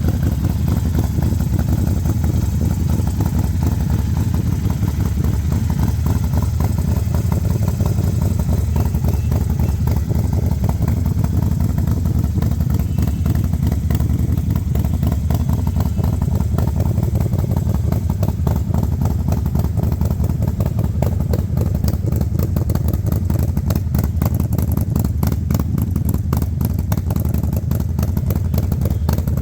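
Harley-Davidson Forty-Eight's 1200 cc air-cooled V-twin idling steadily through a Vance & Hines Grenades full-system aftermarket exhaust, a deep even pulse with no revving.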